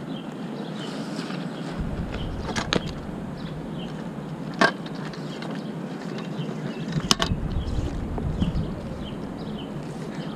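A telescoping sign pole being twisted and collapsed by hand: three or four sharp clicks and knocks as its sections slide and lock, with rubbing and rumbling handling noise over a steady street background.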